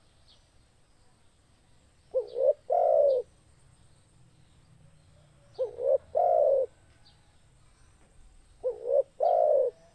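Spotted dove (tekukur) cooing: three calls about three seconds apart, each a quick double note followed by one longer coo.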